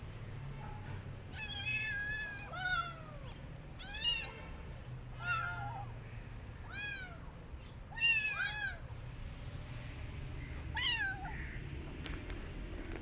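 Kitten meowing: a string of about eight high-pitched meows, each rising and falling in pitch, one to two seconds apart.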